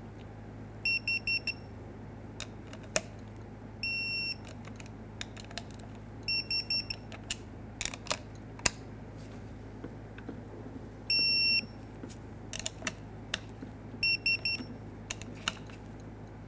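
A digital torque wrench beeps in repeated runs of a few quick short beeps followed by one longer beep, about three times, as each fan blade nut is tightened to its 7 ft-lb setting. Sharp ratchet clicks come in between.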